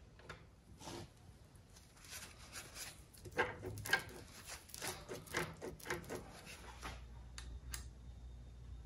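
Shop towel rubbing and wiping over the motorcycle's painted primary chaincase, a run of uneven rustling strokes. Near the end come two sharp clicks as a pump oil can is worked.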